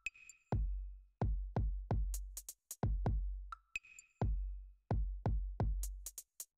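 Electronic background music: a drum-machine beat of deep bass kicks, each trailing a low boom, with clusters of hi-hat ticks and a few short synth beeps.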